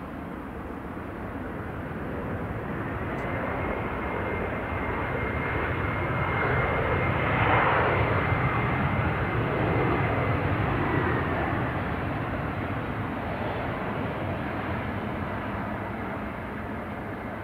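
Boeing 737-300 jet engines (CFM56-3) running as the airliner rolls along the runway after landing and passes by. The noise swells to a peak midway and then fades, with a steady high whine over the rumble.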